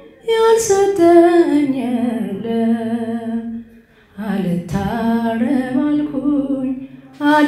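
A woman singing an unaccompanied Ethiopian Orthodox hymn (mezmur) solo, with a wavering vibrato on long held notes. She sings two phrases, with a short breath break about halfway.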